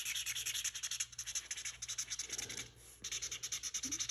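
Black felt-tip marker scribbling on corrugated cardboard in rapid back-and-forth strokes, filling in a dark area, with a short pause about three-quarters of the way through.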